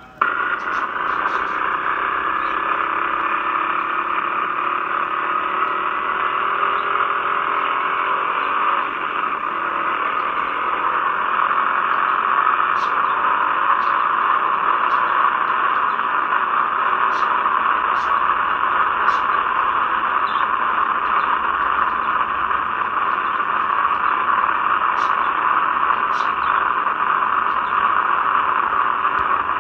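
Motorcycle camera's recorded ride audio played back through laptop speakers: a steady, harsh rush of wind noise on the camera's microphone, with a faint Honda CRF250L single-cylinder engine note rising and falling underneath. It starts abruptly as playback begins.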